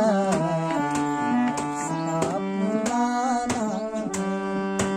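Instrumental passage of a Hindi devotional bhajan: a held, lightly wavering melody over tabla strokes.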